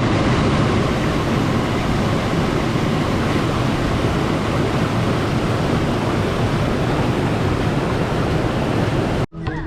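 Waterfall rushing steadily, a dense even wash of water noise that cuts off abruptly near the end.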